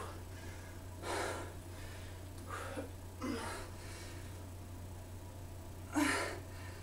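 A woman breathing hard under exertion during kettlebell woodchuck lifts, with about five short, forceful breaths spread over several seconds.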